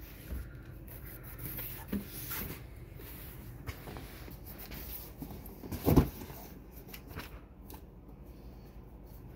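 A cardboard shipping box being turned over and handled, with hands rubbing and tapping on the cardboard. One louder thump comes about six seconds in.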